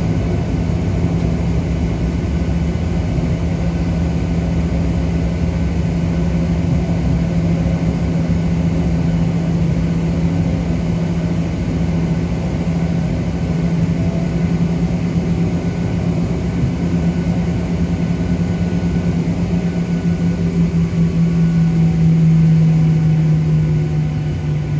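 Cabin noise inside a Southwest Boeing 737 taxiing, heard over the wing: the jet engines at taxi power give a steady low drone with a hum tone over it. Near the end the drone swells briefly and the hum drops a little in pitch.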